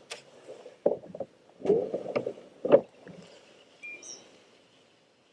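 Water sloshing and splashing against a kayak, with a few knocks on the hull: several short bursts in the first three seconds, then fading out. Faint bird chirps come in around the fourth second.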